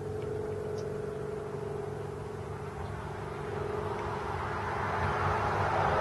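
Steady low machine hum, then a passing vehicle approaching, its rushing noise growing louder over the last couple of seconds.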